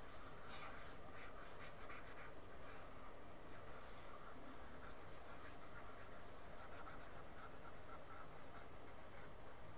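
Faint scratchy rubbing strokes of a stylus worked back and forth across a pen tablet while erasing, in short irregular bursts.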